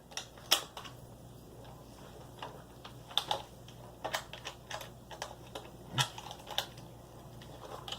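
A dozen or so light clicks and taps at irregular intervals, the sharpest about half a second in and about six seconds in, such as plastic parts of a toy blaster being handled.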